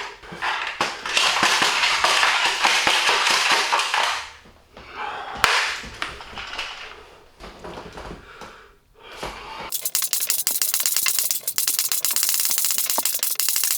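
Nerf Rival Apollo blaster being primed and fired rapidly over and over: rattling clacks of its slide and spring, with a lone sharp click midway and a fast, dense run of clicking near the end.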